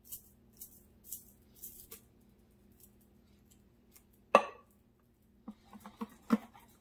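Cream-style corn being shaken and scraped out of a tin can into a plastic bowl, heard as a few soft scraping strokes. About four seconds in comes one sharp clack as the emptied can is set down on the wooden table, followed by quick small clicks of a wire whisk stirring the corn batter.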